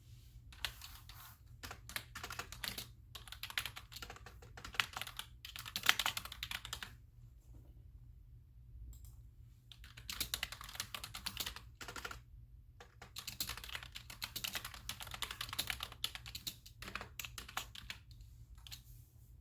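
Typing on a computer keyboard in fast runs of keystrokes with pauses between: a long run, a gap of about three seconds near the middle, then two more runs and a few scattered keys near the end.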